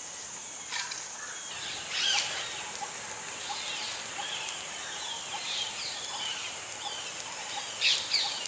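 Outdoor rural ambience: a steady, high-pitched insect drone with many birds chirping and calling throughout. A few sharp clicks stand out, the loudest about two seconds in and near the end.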